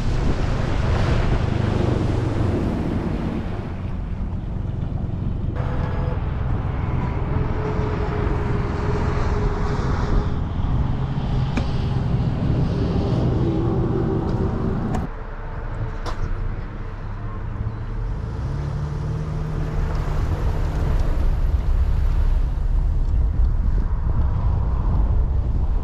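Wind rushing over the microphone of a camera mounted on a bass boat's bow, first while the boat runs across the water and then while the boat rides on its trailer behind a tow vehicle. The sound changes abruptly about five seconds in and again about fifteen seconds in.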